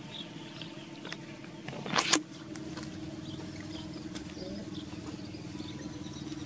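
A single loud splash about two seconds in, as a swimming monkey ducks under the pond water, over a steady low hum.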